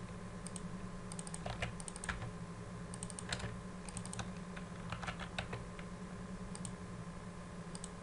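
Typing on a computer keyboard in quick runs of keystrokes that thin out to a few single taps in the second half, over a steady low electrical hum.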